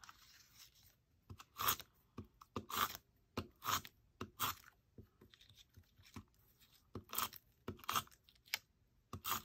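Handheld tape runner rolling adhesive onto the back of a small paper card: a dozen or so short strokes at uneven intervals, with paper being handled.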